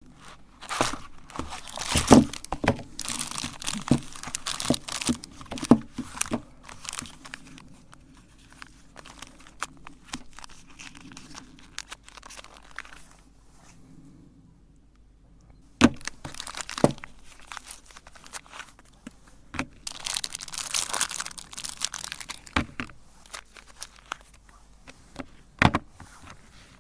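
Bars of soap being handled before grinding: crinkling and tearing with scattered sharp cracks and knocks, quieter for a stretch in the middle.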